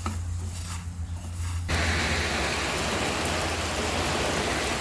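Heavy rain falling, a dense steady hiss that starts abruptly about a second and a half in; before that only a low steady hum.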